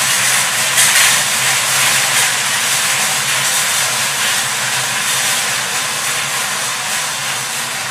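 Five hand-cranked wire-cage lottery drums spinning, the numbered balls inside tumbling and clattering in a steady, dense rattle.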